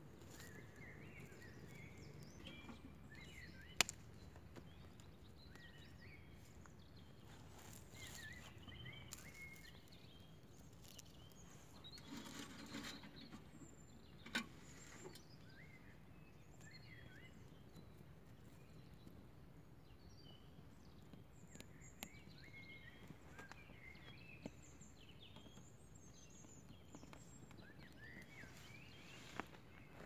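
Quiet open-air ambience with faint bird chirps coming and going. A few sharp snaps and a brief rustle come from twigs being laid on a small wood campfire; the loudest snap is about four seconds in.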